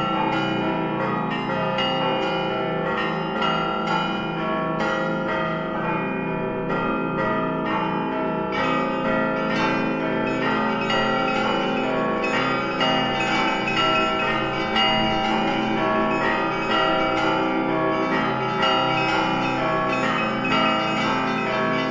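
Russian Orthodox church bells rung together in an unbroken peal (zvon): many bells struck in quick succession, their tones ringing on and overlapping.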